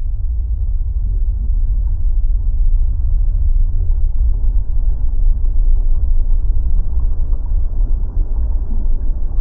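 Deep, steady volcanic eruption rumble, dull and without any distinct tone.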